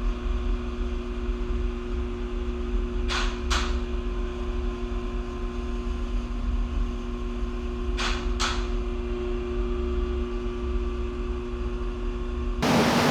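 Steady mechanical hum with a low rumble, broken by two pairs of quick clicks, one about three seconds in and one about eight seconds in. Near the end it changes abruptly to a louder, even hiss.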